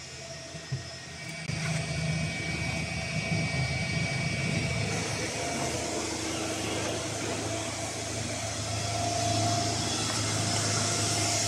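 Steady whir and hum of a 200 W pulse laser cleaning machine's cabinet running, with a low hum and a few held tones over fan-like hiss. It grows louder about a second and a half in.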